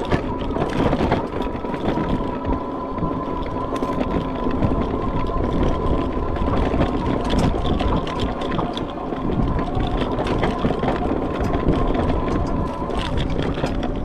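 Aniioki A8 Pro Max e-bike riding on pedal assist over a bumpy grass trail: wind rushing over the microphone and the bike rattling over bumps, with a steady electric motor whine underneath that fades near the end.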